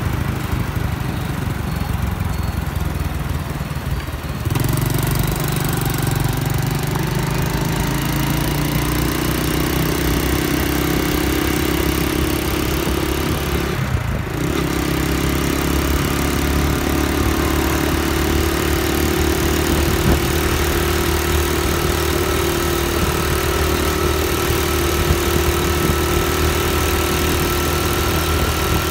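Honda Dream motorcycle's single-cylinder four-stroke engine running steadily while riding under way. The sound grows louder about four seconds in and breaks briefly about fourteen seconds in.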